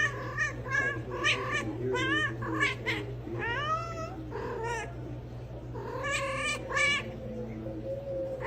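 A domestic cat meowing over and over in short, yowling calls, about a dozen in quick succession, with a brief pause before a last few longer calls.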